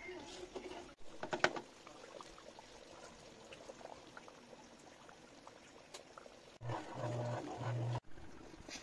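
Thick tomato spaghetti sauce simmering in an aluminium pan, with a wooden spatula clicking against the metal a few times about a second and a half in. Near the end a louder low hum lasts about a second.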